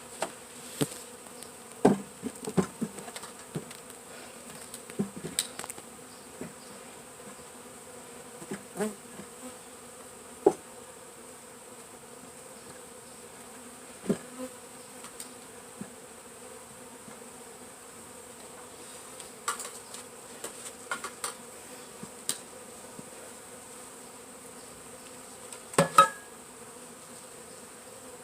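Honeybees from a 3 lb package buzzing in a steady hum while being installed into a hive, with scattered short knocks and taps from handling.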